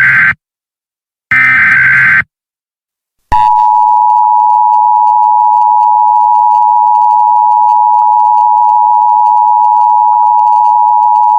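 Emergency Alert System tones. One SAME header data burst ends just after the start and another sounds for about a second. After a short gap, the steady two-tone EAS attention signal starts about three seconds in and holds.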